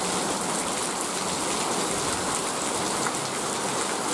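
Rain falling steadily, an even hiss of rain on the ground and surfaces.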